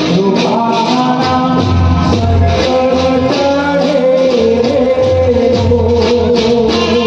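Loud amplified Gujarati folk music: a rattling, shaker-like percussion beat of about four strokes a second over a held melody and a steady bass line.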